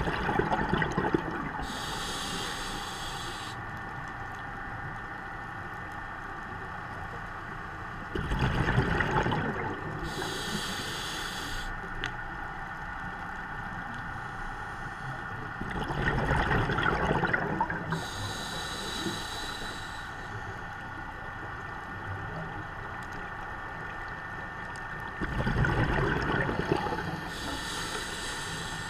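Scuba diver breathing through a regulator, recorded underwater: a high hiss on each inhale, then a loud rush of exhaled bubbles, in a slow cycle of about eight seconds.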